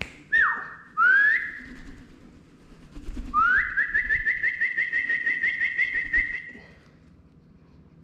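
Person whistling a recall call to a cockatiel: a short steady note that drops in pitch, a quick rising note, then a long note that rises and levels off with a fast warble for about three seconds.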